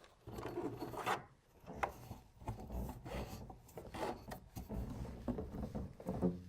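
Plastic tackle crate and bungee cord being handled and pulled into place, making a run of irregular rubbing, scraping sounds with light knocks.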